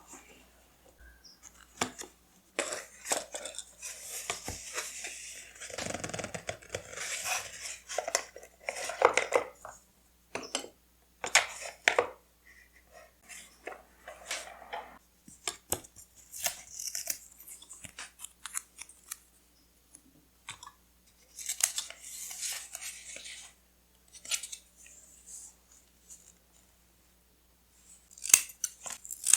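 Close-up paper-crafting sounds: scissors snipping, with paper and washi tape rustling and being handled, in short irregular bursts with quiet pauses between.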